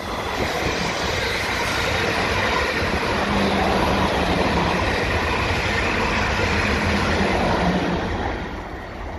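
South Western Railway Desiro electric multiple unit passing through the station at speed: rushing wheel-on-rail noise with a steady low hum from the motors. It dies away near the end as the last coach goes by.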